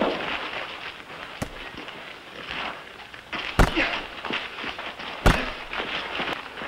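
Punch impacts in a fistfight: two loud hits about a second and a half apart near the middle, with lighter hits before and after, over crowd noise.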